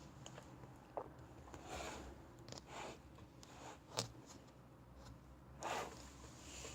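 Hands working slime: faint sticky squishing and rustling with scattered small clicks and pops, the sharpest click about four seconds in.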